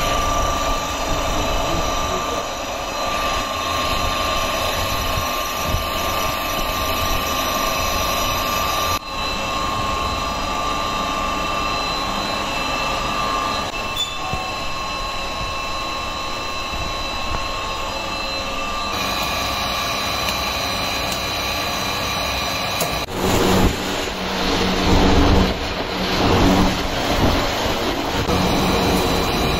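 Macaroni-making machinery running with a steady hum and a constant high whine. The noise changes abruptly a few times and grows louder and rougher in the last few seconds.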